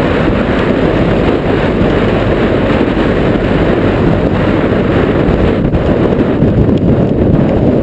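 Strong storm wind gusting across the microphone: loud, steady wind noise with a heavy low rumble and no break.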